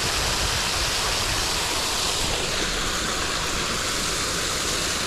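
Small waterfall running steadily: a constant, even rush of falling water.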